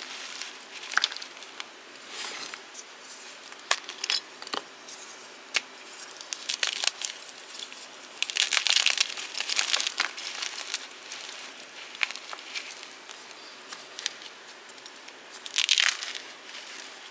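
Fresh blocks of gym chalk being crushed: irregular crunching and crackling with sharp snaps, and longer bursts of crumbling about halfway through and again near the end.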